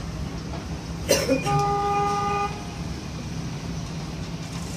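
A vehicle horn gives one steady toot of about a second, right after a sharp knock about a second in; a low steady hum runs underneath.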